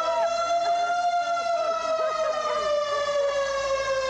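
A vintage fire engine's siren wailing steadily, its pitch rising a little in the first second and then slowly sinking.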